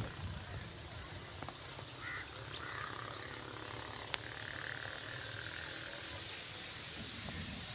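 Quiet rural outdoor ambience with a low steady rumble and a few faint animal calls, and one sharp click about four seconds in.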